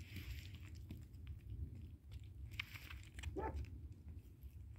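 Bear cub eating from a plate, with wet chewing and biting and a few sharp clicks about two and a half seconds in, over a low steady rumble. A brief rising note sounds about three and a half seconds in.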